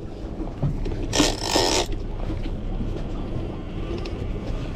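Boat engine running with wind and water noise, a steady low rumble, and a short loud hiss about a second in that lasts under a second.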